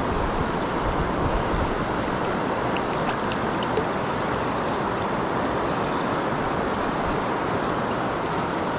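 River water rushing steadily. A few faint ticks come about three seconds in.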